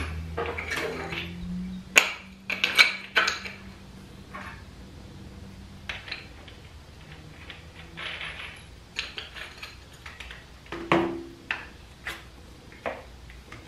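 Scattered clicks, knocks and clinks as a cordless angle grinder is handled and adjusted, its plastic housing and metal guard knocking now and then. A faint steady hum fades out over the first few seconds.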